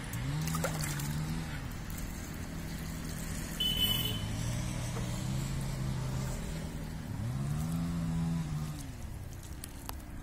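Cattle mooing: several long, low calls one after another, each rising and then falling in pitch. A brief sharp sound comes about four seconds in.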